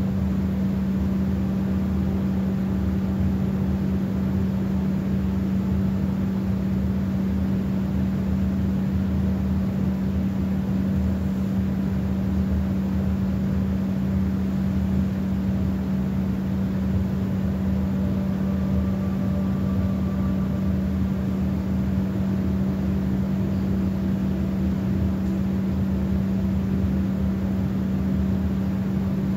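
A steady low hum holding one unchanging tone over a faint rumble, with a faint higher tone briefly about two-thirds of the way through.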